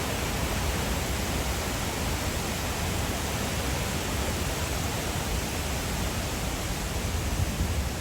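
Waterfall water rushing: a steady, even hiss of flowing water.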